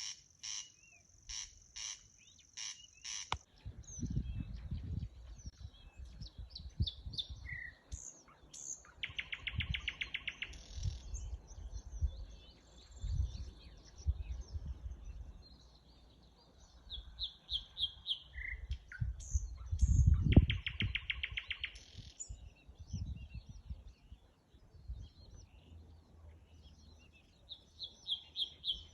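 Birds calling repeatedly: a run of sharp chirps about two a second, then mixed calls with two rapid trills. Low rumbles come and go underneath.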